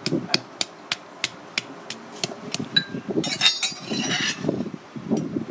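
Stone pestle pounding in a stone mortar, sharp knocks about three a second. Then a metal spoon clinks once against the stone and scrapes around inside the mortar.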